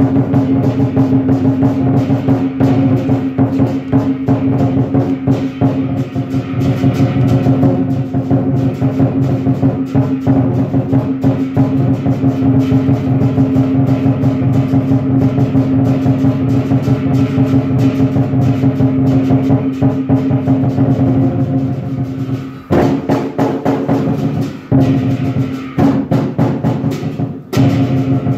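Lion dance percussion: a large drum beaten in a fast, dense rhythm over ringing cymbals and gong. Near the end the beat breaks off briefly three times.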